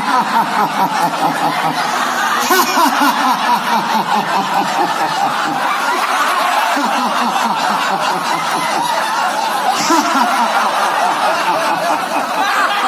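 A large group of men, women and children laughing heartily together on cue in a laughter-yoga exercise: many overlapping voices in continuous guffawing laughter.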